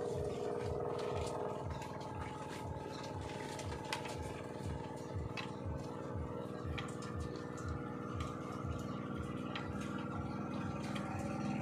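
A running engine drones steadily, with a low thud about three times a second. Small clicks and scrapes of hands picking at food on banana leaves sound over it.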